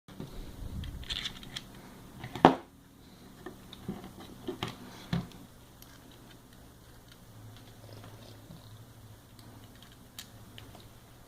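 Small parts being handled while the plastic extruder body is fitted to the stepper motor mount: scattered clicks and knocks, one sharp knock about two and a half seconds in and a few quick clicks around the five-second mark, over a faint steady low hum.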